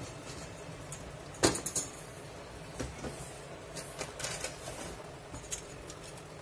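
Handling noises as a hacksaw blade is fitted into a homemade wooden reciprocating-saw holder: one sharp click or knock about a second and a half in, then a few lighter scattered clicks, over a faint steady hum.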